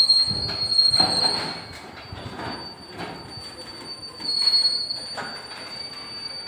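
Freight train of ballast-loaded hopper wagons rolling slowly past, its wheels squealing against the rails. The high, steady screech fades about a second and a half in and comes back briefly about four seconds in, over irregular clanks of wheels and couplings.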